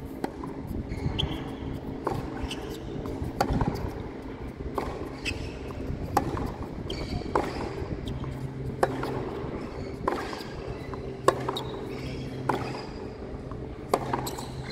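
Tennis rally on a hard court: sharp hits of the ball off racket strings, about one every second or so, over a steady low hum.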